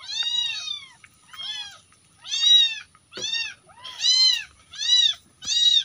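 A young kitten meowing over and over: about eight short, high-pitched mews in a row, each rising and falling in pitch.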